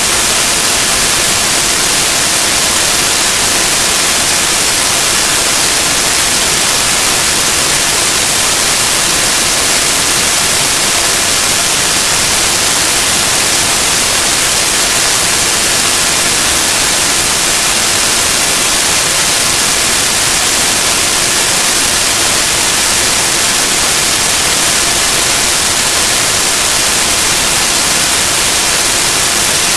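Loud, steady static hiss that stays even throughout, with a few faint steady hum tones underneath.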